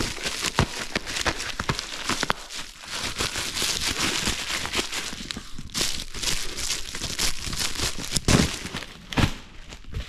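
Plastic bubble-wrap bag crinkling and crackling as it is handled and unwrapped, in dense irregular bursts, with a couple of heavier thuds near the end.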